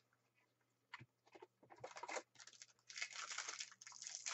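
Wrapper of a Match Attax trading-card pack crinkling and tearing as it is opened by hand. It starts about a second and a half in and gets busier toward the end.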